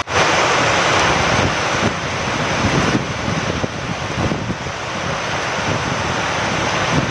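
Steady rain falling with wind, an even hiss; it cuts out for an instant at the very start and picks straight up again.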